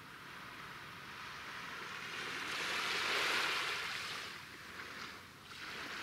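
Small sea waves washing in. One swell builds to a peak about halfway through and fades, and another rises near the end.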